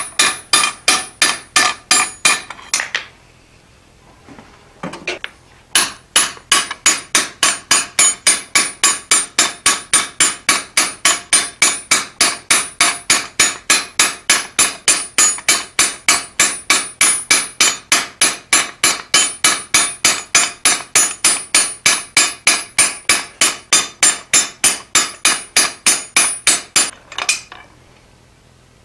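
Hand hammer striking the top arm of a mild-steel pivoted fullering jig, fullering a hot steel pipe between its dies. The blows are sharp, ringing and evenly paced, about three a second. They stop for about three seconds near the start, then run steadily until about two seconds before the end.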